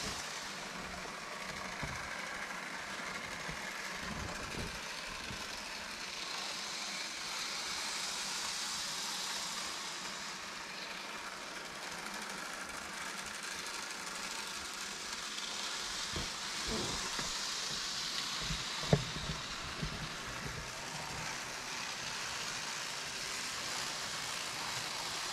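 N and Z scale model trains running on their track: a steady, high, hissing whir that swells and fades a few times, with a few faint clicks.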